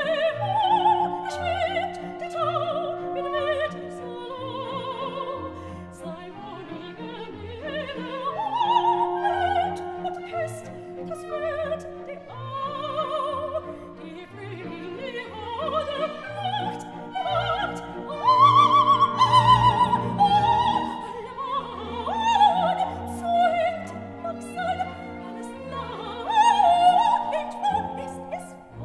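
Background music: an operatic voice singing with vibrato over an orchestral accompaniment.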